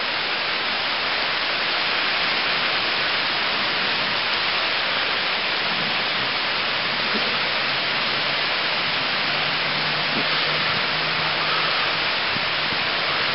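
Heavy hurricane rain pouring down in a steady, even hiss.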